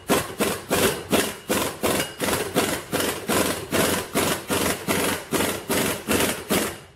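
Cordless impact wrench hammering as it drives the screw of a C-clamp ball joint press, pressing a U-joint cap out of its yoke. It pulses evenly, about four beats a second, and stops just before the end.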